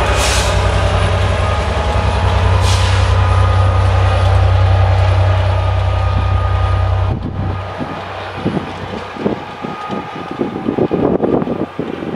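Class 67 diesel-electric locomotives' EMD two-stroke V12 engines and the train's wheels running past as a test train goes by, a steady low drone with a thin whine and two brief hisses near the start. About seven seconds in the engine drone drops away, leaving a fainter, uneven rumble as the train moves off.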